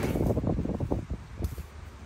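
Rapid soft crackling of boiled corn kernels being prised off the cob by fingers into a steel bowl, thinning out after about a second, over a steady low hum.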